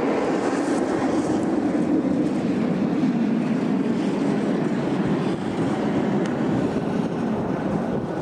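Twin-engine jet airliner on its landing rollout on a wet runway: a steady low rumble from its engines.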